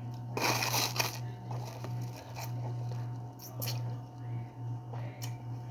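Biting and chewing refrozen shaved ice close to the microphone: one loud crunch about half a second in, then scattered smaller crunches and clicks.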